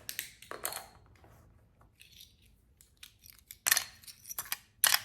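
Small plastic toy play coins and pieces clicking and clattering as they are put into a toy plastic shopping basket: a few clicks at the start, soft ticks in the middle, and louder clatters in the last second and a half.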